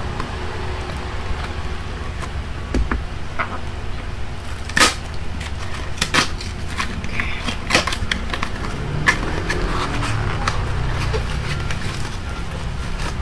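A small cardboard shipping box being opened by hand: scattered sharp snaps and scratches as tape and flaps are pulled, with some rustling in the second half, over a steady low hum.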